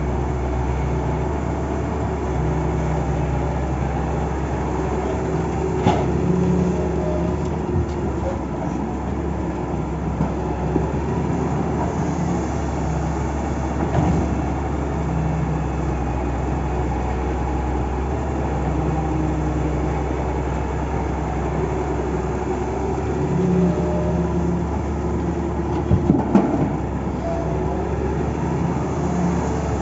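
Heavy earthmoving machinery's diesel engine running steadily under varying load, with a few short metallic knocks.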